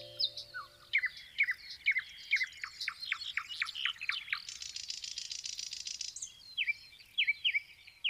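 Songbird chirping: a fast run of short, sharply falling whistled notes, then a brief pause and a few more chirps near the end. A held musical chord fades out about a second in.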